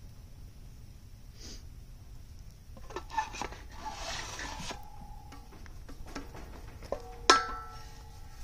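Wet clay being scraped and rubbed by hand across a wooden board, the scraping strongest for a second or two about three seconds in. There are a few sharp knocks that ring briefly, the loudest about seven seconds in.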